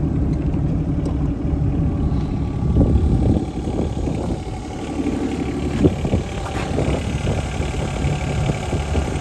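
Yanmar diesel engine of a John Deere 17D mini excavator running steadily, with a couple of short knocks about three and six seconds in.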